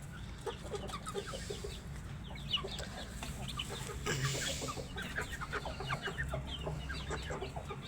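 A group of young Aseel chickens clucking and peeping, many short quick calls overlapping. A brief rustling burst about four seconds in.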